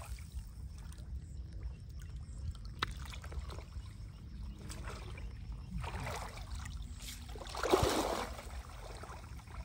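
Shallow pond water sloshing and splashing as a person wades and works a woven fish-catching basket through it, with a louder splash about eight seconds in, over a steady low rumble.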